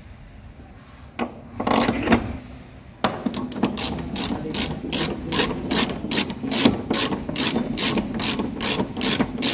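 Hand ratchet clicking rapidly and evenly, about three clicks a second from about three seconds in, as it turns the 17 mm upper mounting bolt of a Hyundai Verna's rear shock absorber. A brief scrape comes before it, as the socket goes onto the bolt.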